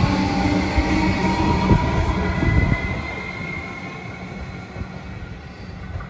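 Comeng electric suburban train running past along the platform, a loud rumble with a rising high whine, then fading away about three seconds in as the last car clears.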